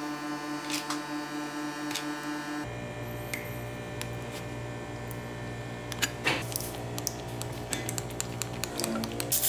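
Small sharp clicks and cracks of pliers working on the plastic and metal parts of a diecast model car, over a steady mechanical hum. About a third of the way in the hum changes, and scattered clicks and taps of the parts follow, bunching near the end.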